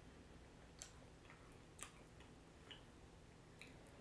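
Near silence with a handful of faint, scattered mouth clicks and smacks from someone chewing barbecue ribs eaten by hand.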